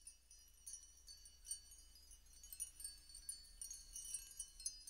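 Faint high-pitched chime tones tinkling irregularly over a low steady hum.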